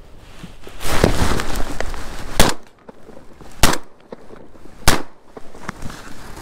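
Three shots from a Winchester SX4 12-gauge semi-automatic shotgun fired at ducks over the decoys, about 1.2 seconds apart. Before the first shot there is about a second and a half of loud rustling noise.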